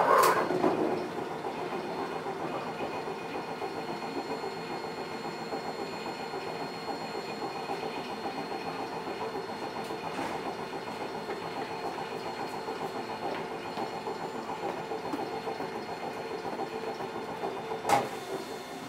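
Eizan Electric Railway Deo 700 series electric railcar running on the line, heard from inside the car: a steady rumble of wheels and running gear on the rails. A louder knock opens it, and a single sharp click comes near the end.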